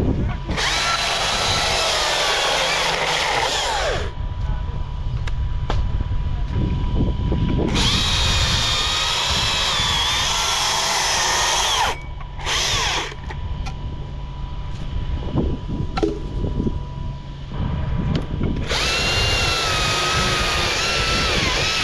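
Chainsaw cutting into a tree trunk in four bursts, the first about half a second in, a longer one from about eight to twelve seconds, a short one just after it, and one starting near the end, with quieter pauses between.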